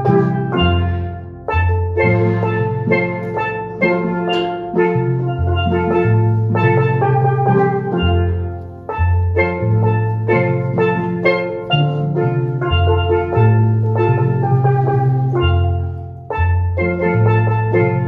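A steel pan ensemble playing a tune together: lead pans strike a quick, rhythmic melody over low bass pan notes that change every second or so.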